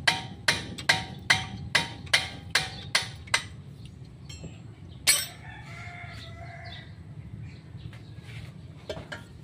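Steel ring spanner clinking in a quick even rhythm, about two and a half clicks a second, as a bolt on a truck's steering knuckle is worked loose; the clinking stops a little over three seconds in. A single sharp metallic click follows, then a rooster crows in the background.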